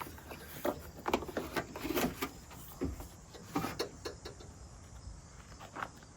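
Plastic tailgate trim panel being pried off, with irregular clicks and knocks as its clips let go and the panel shifts; the clicks come thickest in the first four seconds and thin out near the end.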